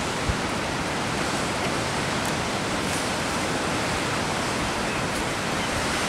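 Rough sea surf breaking and foaming over rocks: a steady, even rush of water noise with no single distinct crash.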